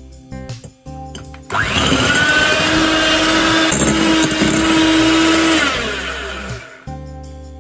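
Electric hand mixer running, its twin wire beaters whipping egg whites and sugar into stiff meringue in a glass bowl. It starts abruptly about a second and a half in, runs steadily for about four seconds, then fades out about a second before the end.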